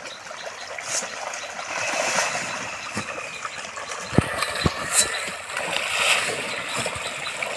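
A shoal of pond fish splashing and churning at the water's surface in a feeding frenzy: a steady crackle of many small splashes. Two short dull thumps about four seconds in.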